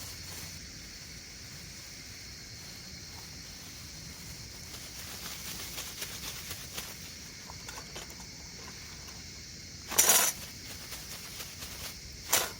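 Light handling clicks, then two short, sharp clinks, one about ten seconds in and the other about two seconds later, over a steady faint high hiss.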